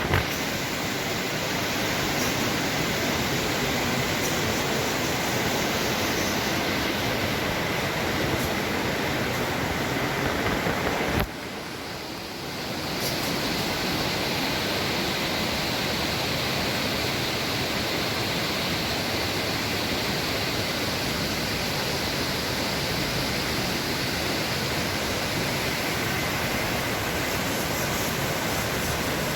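Steady, loud rush of a large waterfall pouring down, with a sudden brief dip in level about eleven seconds in.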